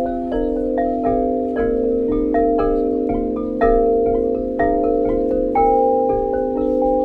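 Chime tones struck one after another, each ringing on and overlapping the next, with a stronger stroke about once a second.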